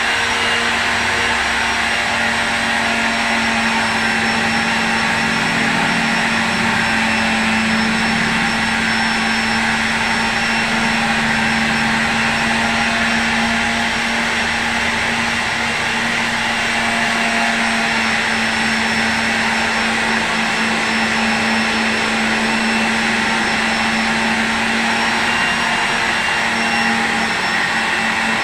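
A power tool's electric motor running steadily without let-up, a constant whir with a hum.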